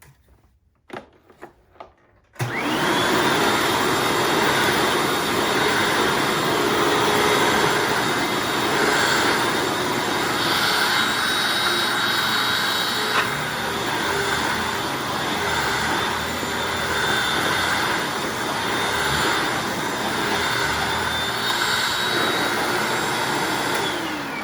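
Hoover Anniversary upright vacuum cleaner: a few light clicks, then the motor switches on abruptly and runs steadily with a high whine while it picks up debris from carpet. Near the end it is switched off and the whine falls away.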